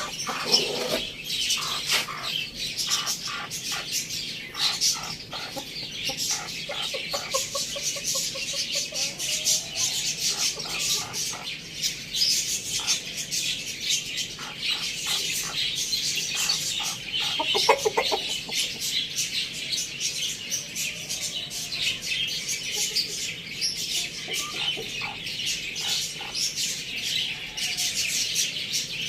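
Dense, constant high-pitched chirping from many birds, with chickens clucking now and then, one short louder call about eighteen seconds in.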